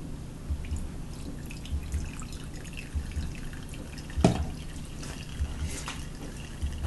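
Hot water draining through a punctured K-cup and dripping into a mug below, in small irregular drips, with one louder plink about four seconds in.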